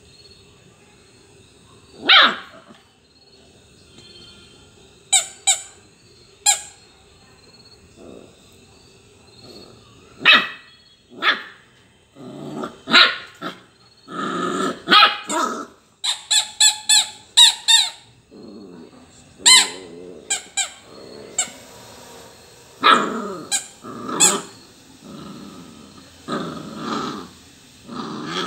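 Labrador puppy barking and growling in play over a rubber toy: short sharp yips and barks in scattered bursts, a quick run of them about halfway through, and longer growls in between.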